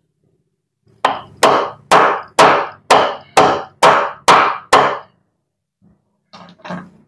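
A tool striking the worn bushing in a Maspion blender cup's base to knock it out: nine sharp knocks about half a second apart, each ringing briefly, then two lighter knocks near the end.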